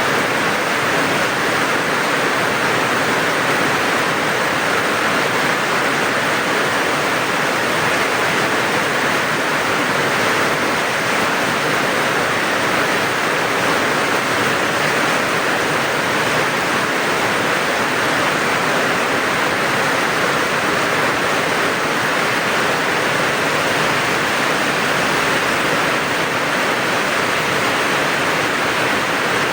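Rain falling steadily: a dense, even hiss with no single drops standing out.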